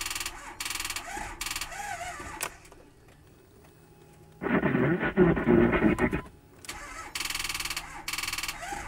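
Ford F-250's 6.4 Power Stroke diesel failing to start on a very dead battery: a rhythmic chatter pulsing about twice a second, then a loud burst of under two seconds about four and a half seconds in that does not catch. The chatter comes back near the end.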